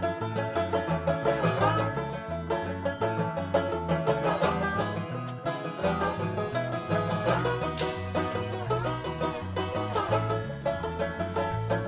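Background bluegrass music: fast banjo picking over a bass line that alternates between two notes.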